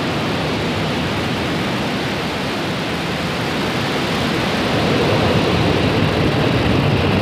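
Falcon 9 first stage's nine Merlin 1D engines at liftoff: a steady, dense rushing roar of rocket exhaust, growing somewhat louder about two-thirds of the way through as the rocket climbs.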